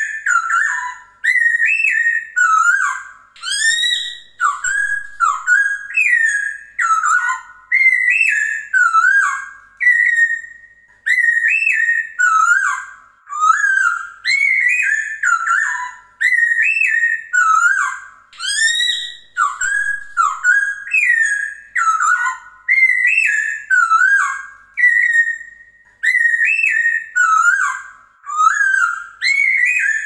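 Chinese hwamei (Poksay Hongkong) singing a loud, continuous run of varied whistled phrases. Each phrase slurs up and down, and they follow one another with barely a pause.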